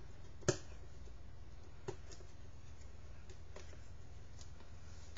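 Packaging being handled: one sharp click about half a second in, then a few faint ticks and taps over a low steady hum.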